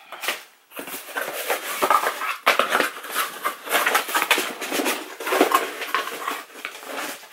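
Cardboard box and packing paper being handled: dense, crackly rustling and crinkling with many small sharp crackles, starting about a second in.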